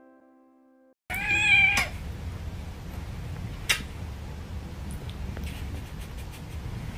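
A domestic cat meowing once, one drawn-out meow about a second in, over a steady low background rumble, with a sharp click near the middle.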